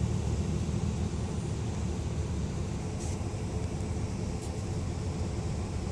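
Steady low rumble of a car's engine and tyres rolling slowly, with two faint clicks in the second half.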